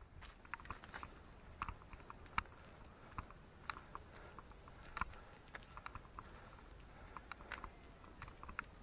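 Footsteps climbing a gritty stone stairway: faint, irregular clicks and scuffs of shoes on stone, a few a second.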